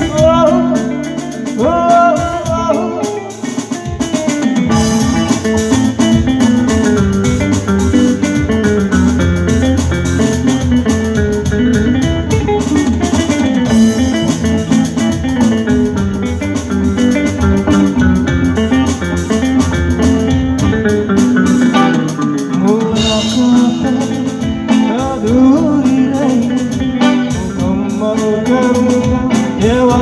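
Live three-piece band playing through stage speakers: electric guitar, keyboard and drums.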